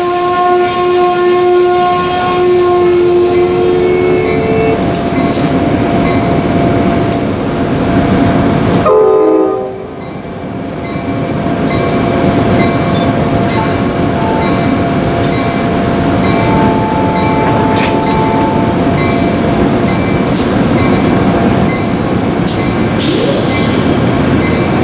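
A locomotive air horn sounding a chord of several notes, which stops about four seconds in. Then the steady, dense rumble and rail noise of a passing train, with a brief dip in level near the middle.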